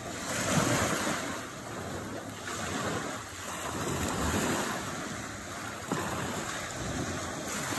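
Small sea waves breaking and washing up onto a sandy shore, swelling and easing every second or two, with wind on the microphone.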